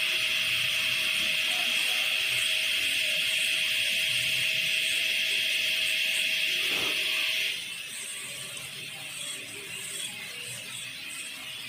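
High-speed dental handpiece running with a steady high whine as its inverted cone bur cuts the gingival step of a Class II cavity in a model tooth. About seven and a half seconds in, the sound suddenly drops and turns quieter and uneven.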